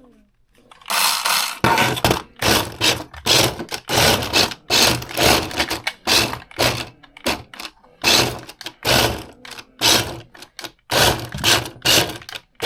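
A cheap 1/24 scale brushed RC drift car's motor and gears whirring in a string of short on-off bursts, about two to three a second. This is the full-or-nothing throttle of a non-proportional controller.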